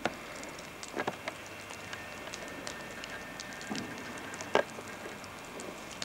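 Bonfire crackling: scattered sharp snaps and pops over a steady hiss, with a few louder pops about a second in and again past halfway.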